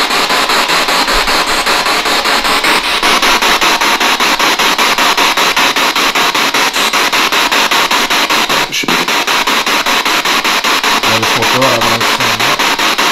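SB7 spirit box sweeping through radio stations: loud, steady static chopped several times a second, with brief fragments of radio sound near the end.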